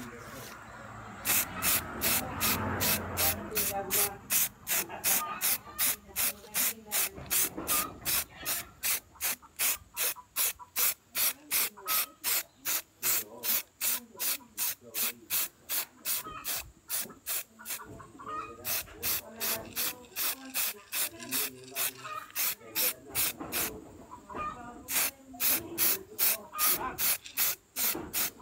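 Aerosol spray-paint can sprayed in short, rapid bursts, about two or three hisses a second, pausing briefly twice, as a coat of paint goes onto a motorcycle swing arm.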